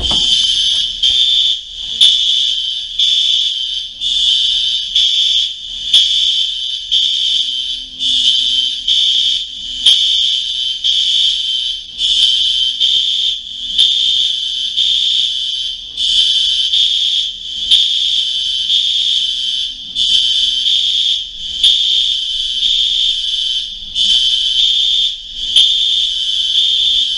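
Apartment building fire alarm sounding a loud, high-pitched tone in regular repeating pulses.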